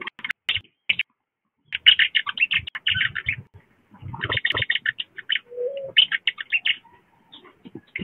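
Wild birds calling in quick runs of high chirping notes, in several bursts with short gaps between them, and one short low cooing note about five and a half seconds in.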